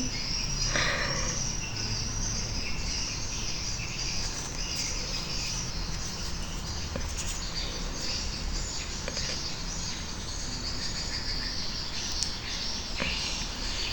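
Insects chirring steadily: an even, high background hiss with no distinct calls or knocks.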